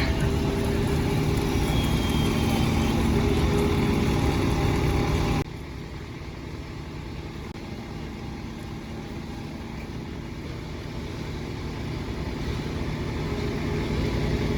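A heavy engine running steadily at idle. About five seconds in, the sound drops abruptly to a quieter, steady engine hum that grows a little louder near the end.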